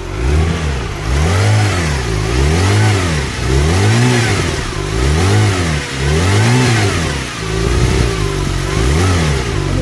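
2014 Porsche 911 Turbo S's 3.8-litre twin-turbo flat-six revved repeatedly through its exhaust in the quieter, non-sport exhaust setting, each blip rising and dropping back, about once a second, with a short steady idle shortly before the end.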